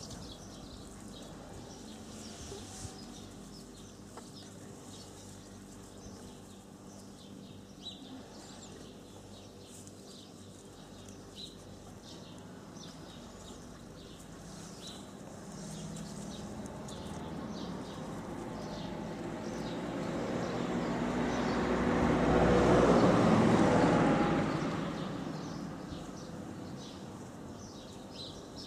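Outdoor background with birds chirping, while a passing vehicle swells up slowly, is loudest about two-thirds of the way through and then dies away over a few seconds.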